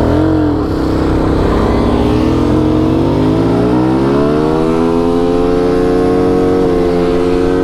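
Motorcycle engine revved hard and held at high revs during a burnout. After a quick blip at the start, its pitch climbs over a couple of seconds and then holds steady.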